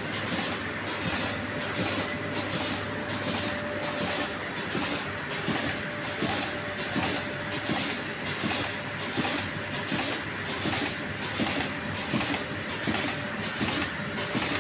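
Automatic carton window-patching machine (Zhengmao TC-800 / TC-1050) running at production speed: a steady mechanical clatter with a rhythmic hiss repeating about three times every two seconds as boxes are fed through.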